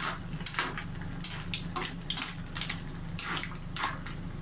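Green mussel shells clinking and scraping against each other and the metal pan: about a dozen short, sharp clicks at irregular intervals.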